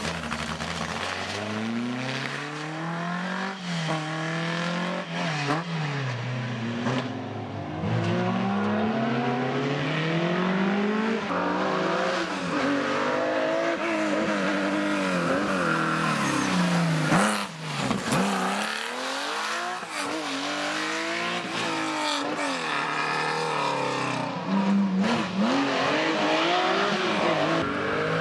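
Historic rally cars driven hard through a hairpin one after another, an Alpine A110 pulling away and then a Porsche 911 coming through. Their engines rev up and drop back again and again as they change gear and brake.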